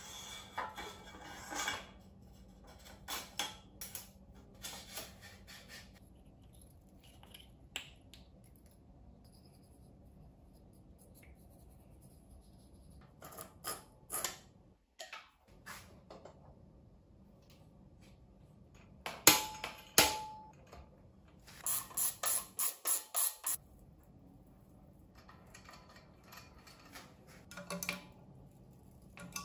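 Scattered metallic clicks, taps and clinks of bicycle parts and hand tools being handled on a workbench as a headset, steerer plug and stem are fitted. Past the middle come a few sharp knocks, one with a short ring, then a quick even run of about seven clicks.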